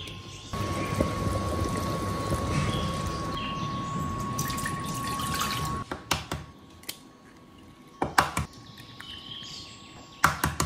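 Broth bubbling in a covered pot on the stove: a steady boiling hiss that stops about six seconds in. Then eggs are cracked into a glass bowl, with three bursts of sharp taps and cracks about two seconds apart.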